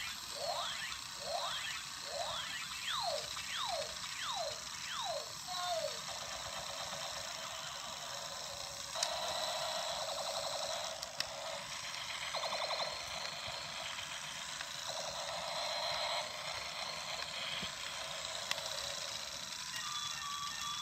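Battery-operated toy robot's electronic sound effects from its small speaker: about nine sweeping laser-like zaps in quick succession, then a stretch of buzzy electronic tones and beeps that start and stop.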